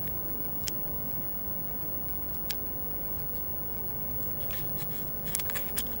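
Steady low rumble of outdoor background noise with a few sharp ticks: one about a second in, one near the middle, and a quick run of several near the end.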